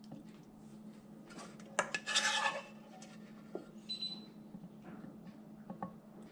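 A plastic serving spoon clicking and scraping against a ceramic plate as it lifts and turns pieces of stir-fried pork liver, loudest in a short run about two seconds in, with a few lighter taps after. A faint steady low hum runs underneath.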